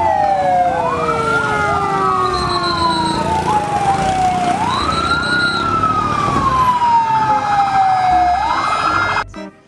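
Fire engine siren wailing: the pitch climbs quickly, then slides slowly down, three times over, with echoing copies of the tone trailing behind. It cuts off shortly before the end.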